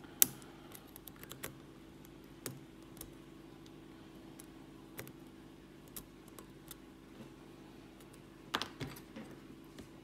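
Light, scattered metallic clicks and taps of a lock pick working the pin stacks of a brass Lockwood pin-tumbler padlock under a tension wrench during single-pin picking. The sharpest click comes just after the start, with a small cluster of clicks near the end.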